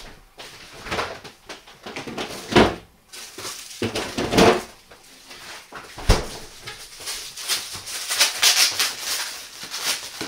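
Sounds of someone eating freshly cooked rice: chewing and mouth noises with light clicks, a sharp knock about six seconds in, and a denser patch of crackly noises near the end.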